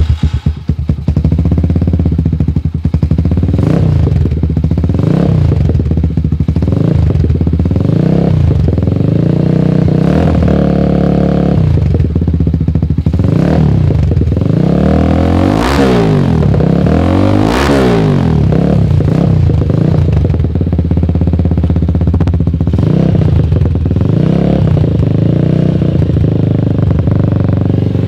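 Motorstar Z200 motorcycle engine running through an open Akrapovic-style carbon slip-on exhaust with its silencer removed. It idles loudly and is blipped with the throttle over and over, with two bigger revs just past the middle.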